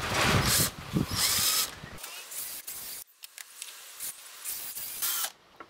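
Hychika 12 V cordless drill boring a small pilot hole through a hardwood handle block, its motor run in stop-start bursts. It is loudest in the first two seconds, then runs in shorter, softer bursts and stops a little after five seconds in.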